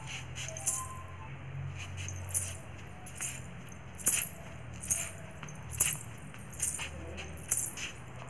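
Silver ghungroo anklets jingling with each slow step, a short bright jangle of small bells about every second, over a faint low hum.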